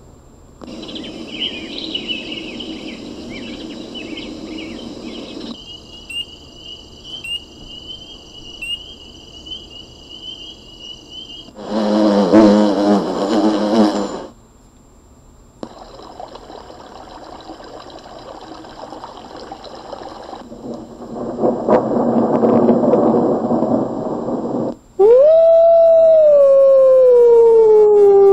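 Recorded nature sound clips from an Adafruit NeoTrellis sound-effect board play one after another, each starting and stopping abruptly: high chirping, then a steady high trill, a loud burst around the middle, more clips, and about twenty-five seconds in a loud, long howl falling in pitch.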